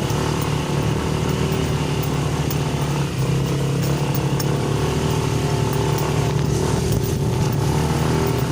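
Motorcycle engine running steadily with an even low drone, carrying a rider up a steep forest trail.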